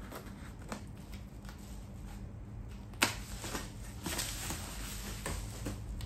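Cardboard parcel being opened by hand: packing tape and cardboard flaps rustling and scraping, with one sharp snap about three seconds in and denser rustling in the last couple of seconds.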